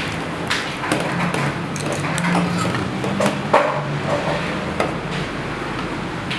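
Irregular knocks and clinks of kitchen utensils being handled, over a steady low hum.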